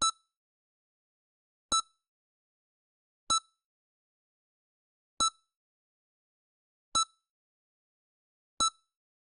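EKG heart-monitor beep sound effect: six short, identical high beeps, one roughly every one and three-quarter seconds, with silence between.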